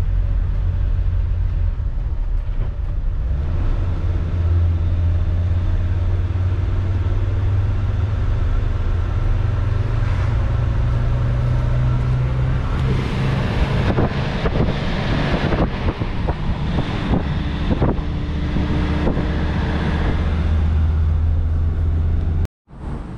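Motorhome driving along, with a steady low road-and-engine rumble. A string of sharp knocks and rattles runs through the second half. The sound drops out abruptly near the end.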